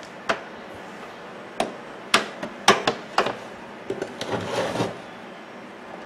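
Handling noise from a microwave oven's flat power cord being uncoiled and laid out across a wooden bench: several sharp knocks and clicks, then a short rubbing scrape about four seconds in.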